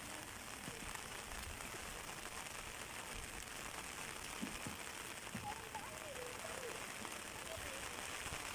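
Steady outdoor background hiss, with a faint distant voice wavering in from about five and a half to seven seconds in and a few soft low thumps.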